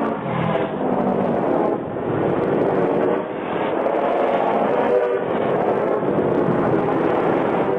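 A looped vehicle sound effect: a dense, steady mechanical running sound with wavering pitched tones, dull and muffled, as if played back from tape.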